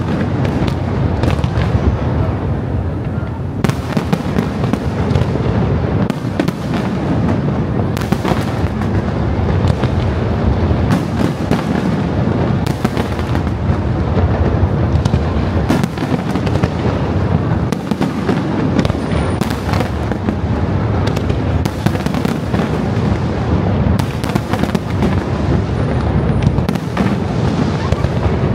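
Aerial fireworks bursting one after another without a pause: deep booms overlapping with many sharp cracks.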